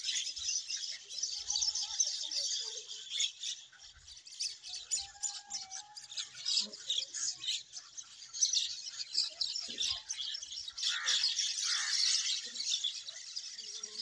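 A colony of swallows twittering at their mud nests: many high chirps overlapping into a continuous chatter, with a louder falling call about eleven seconds in.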